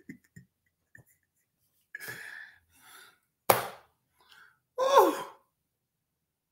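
A man's laughter trails off in a few short pulses, then non-speech breath and voice sounds follow. There is a breathy exhale about two seconds in, a short sharp mouth sound about a second later, and a sigh that falls in pitch about five seconds in.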